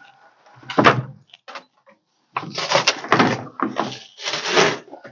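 Scraping and rustling of old carpet and rusted debris being pulled and shifted on the rotted cab floor of a 1976 Ford pickup. There is a short scrape about a second in, then a longer run of several scrapes close together in the second half.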